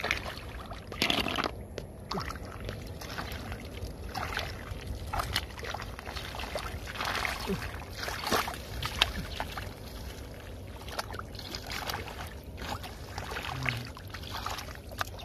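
Hands digging and scooping through wet mud and shallow water: irregular squelches, sloshes and small splashes.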